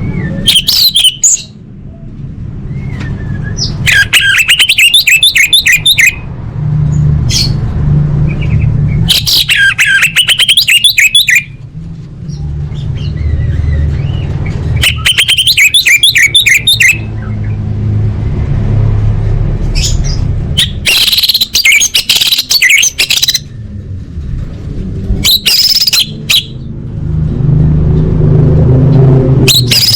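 Orange-headed thrush singing: phrases of rapid, varied high notes, each a second or two long, repeated about every five seconds over a steady low background hum.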